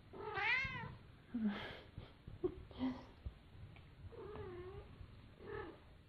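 Cat meowing: about six short meows, one after another, the longest a wavering call about four seconds in.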